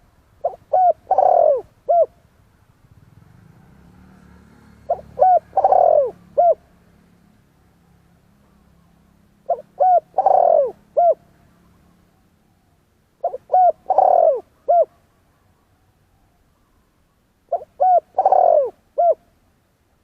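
Spotted dove cooing: five repeated phrases about four seconds apart, each a short coo-coo, a longer loud falling coo, and a short closing note.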